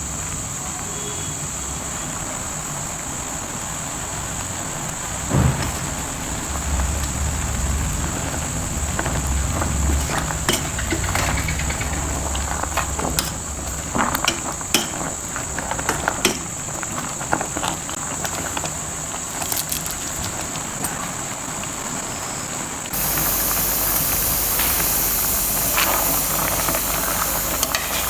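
Food sizzling in a hot pan with a steady hiss, and a spoon clinking and scraping against the pan now and then. The sizzle gets louder suddenly about five seconds before the end.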